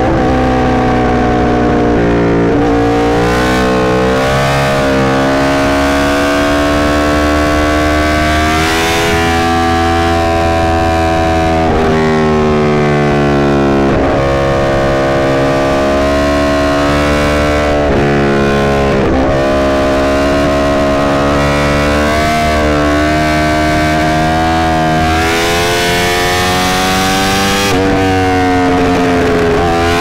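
Yamaha R1's crossplane inline-four engine running hard at highway speed, its pitch climbing and falling, with several abrupt breaks in the note as the rider shifts gears.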